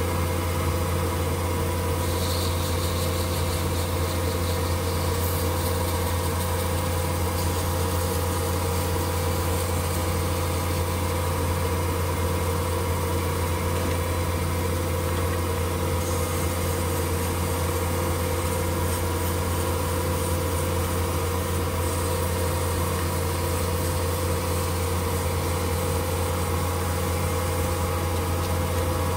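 Small benchtop metal lathe running with a steady hum while sandpaper is held against the spinning tungsten piece to finish it.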